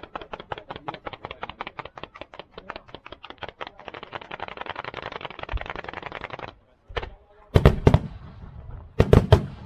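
Fireworks: a rapid, even run of small pops, about eight a second, that thickens into a continuous crackle and cuts off suddenly, followed by several much louder bangs, a single one then a quick cluster of three near the end.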